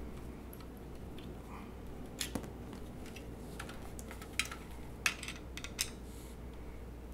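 Scattered small metal clicks and clinks of a screwdriver working screws out of the steel mounting bracket around a 3.5-inch hard drive, and of the drive and bracket being handled. The sharpest clicks come in the second half.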